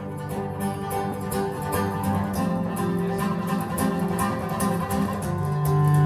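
Recorded music played back over hi-fi loudspeakers: plucked guitar over bowed strings, with a strong low cello note entering and held near the end.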